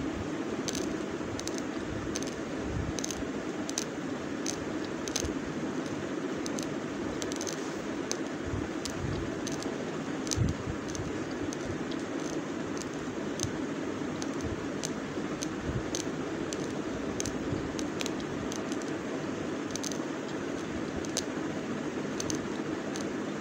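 Raw basmati rice being chewed: sharp crunching clicks about twice a second over a steady hiss.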